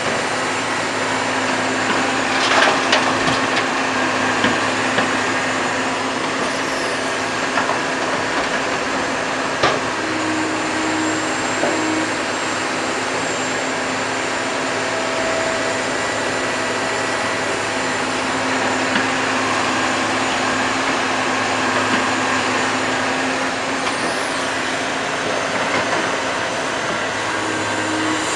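Komatsu PC200 hydraulic excavator's six-cylinder diesel engine running steadily under load as it loads and digs, with a few knocks, the loudest two to three seconds in.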